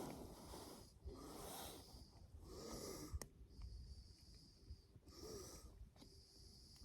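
A person breathing audibly close to the microphone, a series of soft breaths about a second apart, with a single sharp click about three seconds in.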